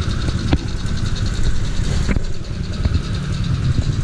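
A 1961 Vespa VBB's single-cylinder two-stroke engine running at idle, a steady low rumble with a few sharp clicks over it.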